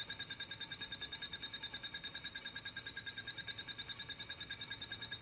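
Lathe turning a metal plate held in the chuck: a steady high-pitched whine from the cut that pulses evenly, about eleven times a second.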